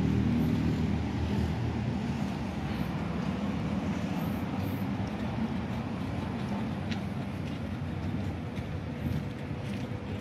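Steady low rumble of road traffic, a little stronger in the first second.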